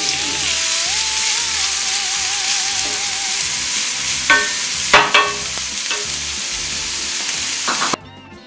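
Chopped red onion sizzling in soy margarine in a cast-iron skillet, stirred with a wooden spoon, with a few knocks and scrapes of the spoon on the pan about four and five seconds in. The sizzling cuts off suddenly near the end and music begins.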